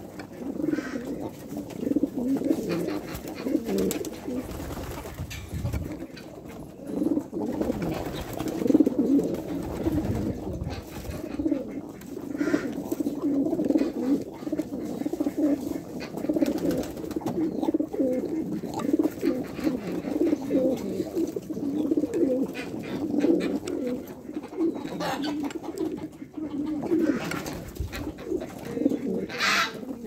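A flock of homing pigeons cooing, many low coos overlapping without a break.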